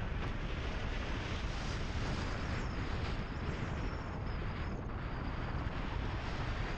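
Wind buffeting the microphone of a camera mounted on a moving car, over steady tyre and road noise from driving on a gravel road. The rumble is even throughout, with no clear engine note.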